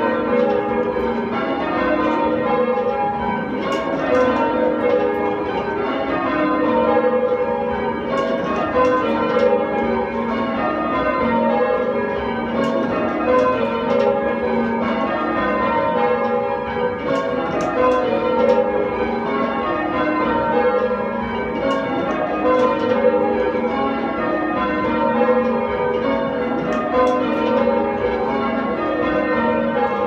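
Ring of eight Taylor church bells rung full circle by hand in change ringing, heard from the ringing room below, with one bell striking after another in a steady, continuous pattern.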